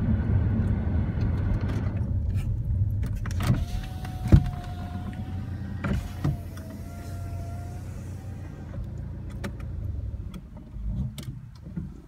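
Car engine and road rumble heard from inside the cabin, fading as the car slows and comes to a stop, then running quieter at idle. There are a few sharp clicks and one louder knock about four seconds in, and a faint steady tone for a few seconds in the middle.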